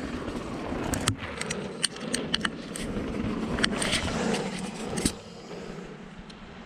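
Bicycle rolling over a bumpy trail: a steady rush of tyre and wind noise with frequent sharp clicks and rattles, easing off about five seconds in.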